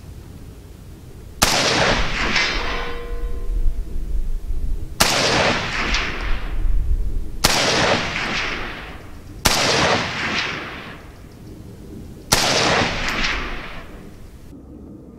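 Five single shots from a Zastava M70AB2 assault rifle in 7.62×39 mm, two to three seconds apart, each followed by an echo that rolls away over a second or two. A brief ringing tone follows the first shot.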